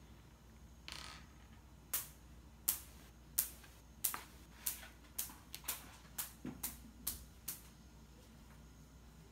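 A run of about a dozen sharp, light clicks, roughly two a second, after a brief rustle of handling.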